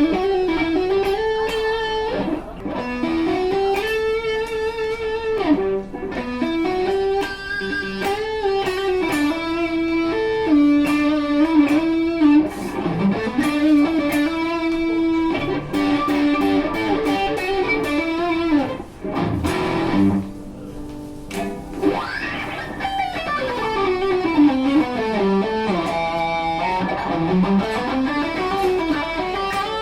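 PRS Custom 24 'Floyd' electric guitar playing a sustained melodic lead line. There is a short quieter break about two-thirds of the way through, followed by runs that sweep down in pitch and back up.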